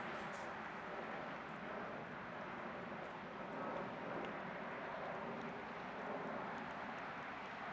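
Boeing 757-200 twin jet engines at takeoff climb power, a steady, even jet noise as the airliner climbs out.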